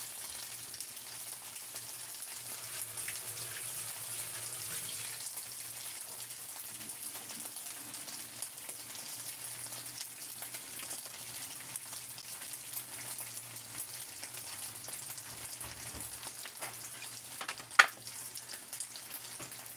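Food frying in hot oil: a steady sizzling hiss dotted with small crackling pops, with one sharp click near the end.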